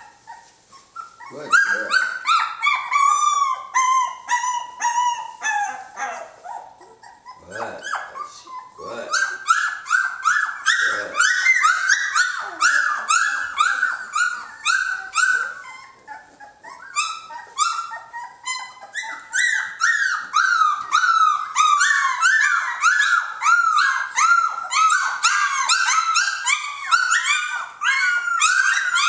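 Three-week-old Jamthund (Swedish Elkhound) puppies whining and crying: a quick, near-continuous run of short high cries, each falling in pitch, with a couple of brief lulls.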